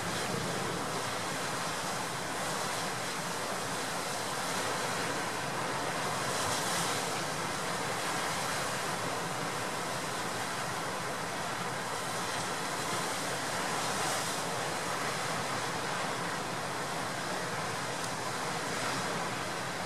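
Storm surf and gale wind: heavy waves breaking over a breakwater in a continuous rush of noise. It swells briefly about six seconds in and again around fourteen seconds.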